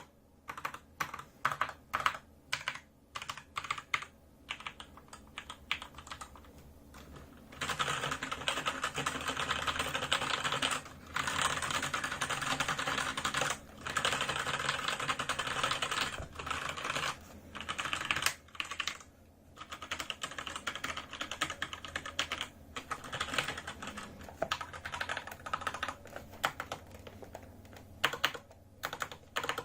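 Keystrokes on a Razer BlackWidow mechanical keyboard with Razer Orange tactile switches: separate key presses for about seven seconds, then about ten seconds of fast continuous typing, a brief pause, and slower separate presses again.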